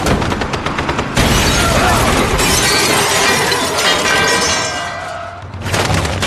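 A school bus smashes into a Humvee about a second in, followed by several seconds of glass shattering and tinkling. The film's gunfire runs just before the impact and starts again near the end.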